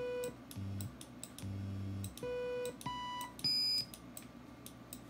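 Macintosh IIcx's built-in sound hardware playing a series of short, pure test beeps through its speaker as audio test buttons are pressed. The first beep is a 500 Hz Note Synth tone, followed by two lower beeps, another 500 Hz beep, a higher one, and a brief high-pitched beep about three and a half seconds in. The tones come out clean, so sound output still works with the Radius Rocket accelerator installed.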